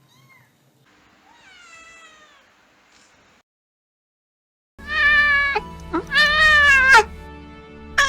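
Domestic cat meowing: one faint drawn-out meow with falling pitch, then after a short pause two loud meows in quick succession. Steady background music plays under the loud meows.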